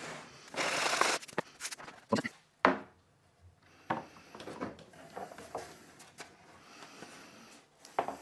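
A sanding block rubbed briefly over the edge of a laminate-faced plywood panel, then several sharp wooden knocks as the panel is handled on the workbench, followed by fainter scattered knocks.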